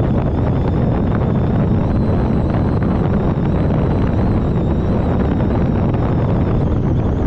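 Wind buffeting the microphone: a steady, dense low rumble with no letup.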